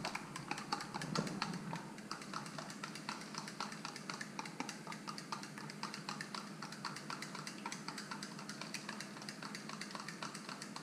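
A utensil beating liquid in a plastic cup, clicking against its sides about four or five times a second, as the wet ingredients for a cake batter are mixed by hand.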